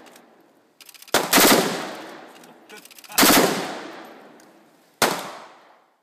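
MSBS-5.56 rifle firing three short strings of rapid 5.56 mm shots, about two seconds apart, each trailing off in a long echo.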